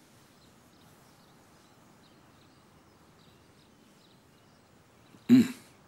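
Quiet outdoor garden ambience with faint, scattered bird chirps. Near the end comes one short, loud burst of a person's voice.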